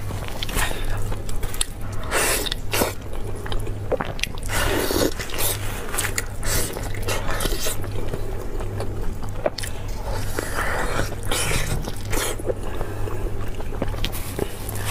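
Close-up eating sounds: irregular wet chewing, biting and lip smacking on soft, sticky braised meat, mixed with squelching as gloved hands pull the meat apart. A steady low hum runs underneath.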